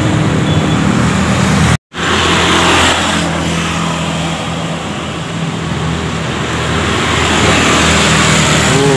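Road traffic: motorbike and car engines running and passing by, a steady engine hum over road noise. The sound cuts out completely for an instant about two seconds in.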